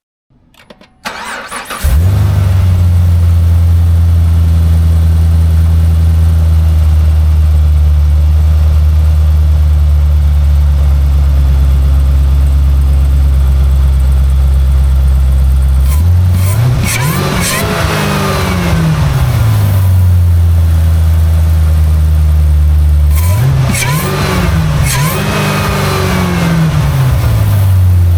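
2016 Cadillac CTS-V's supercharged 6.2-litre LT4 V8, fitted with a Roto-Fab cold air intake, cranking and starting about two seconds in, then idling steadily. It is revved twice, each time a couple of quick blips, with the supercharger whine rising and falling with the revs.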